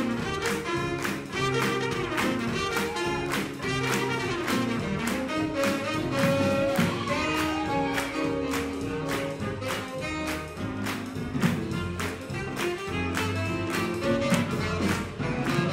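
Live swing jazz band playing a fast, up-tempo dance number: horns carry the tune over a driving beat of about three beats a second.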